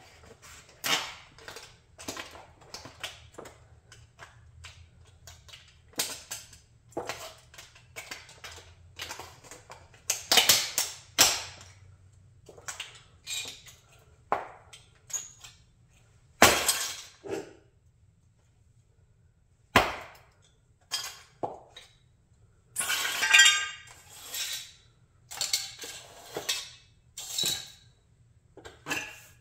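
High-heeled shoes stamping on and crushing a red plastic model Chrysler 300B: a string of separate cracks, snaps and clinks of breaking plastic, with heels knocking on a concrete floor. After a quiet spell of about two seconds past the middle, a longer run of crackling follows.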